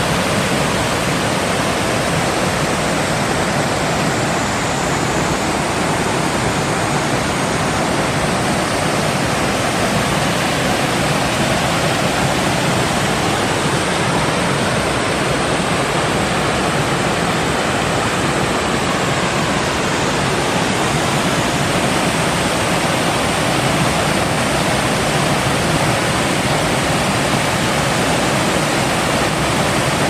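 Small waterfall pouring into a rock pool, with the stream running over rocks below: a steady, unbroken rush of water.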